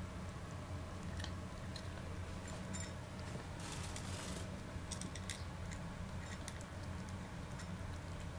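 Somali kitten crunching dry kibble from a bowl, with irregular crisp crunches and clicks. A brief hiss cuts in about halfway through.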